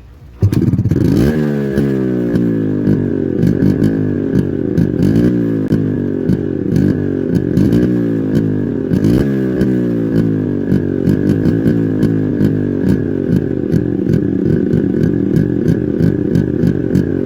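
Yamaha RX135's two-stroke single-cylinder engine through its stock exhaust. It comes in suddenly about half a second in and runs at idle, with a few short blips of the throttle that rise and fall in pitch.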